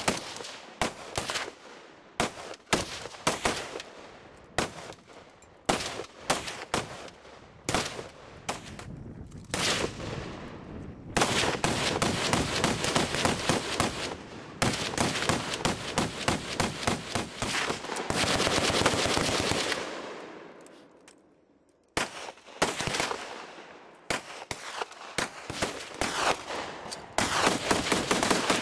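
Machine gun fire. Scattered single shots give way to long, rapid automatic bursts from about 11 to 20 seconds, which die away, then more spaced shots and another fast burst near the end.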